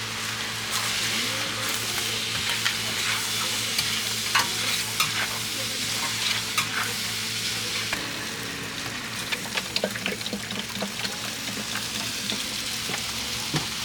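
Beef organ meat (horumon) sizzling on a flat iron griddle as it is stirred and turned, with frequent sharp clicks and scrapes of metal spatulas on the plate.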